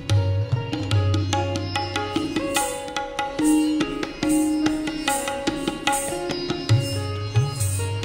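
Indian classical instrumental music accompanying Kathak dance: a plucked string instrument plays a quick run of ringing notes over hand drums, with a booming low drum at the start and again near the end.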